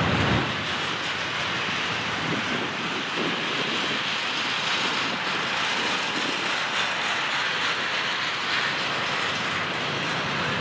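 Double-stack container train rolling past at close range: a steady rumble of freight cars on the rails, with the wheels clacking over the rail joints.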